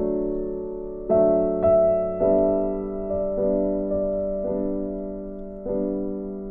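Soft background piano music: slow chords struck about once a second and left to ring.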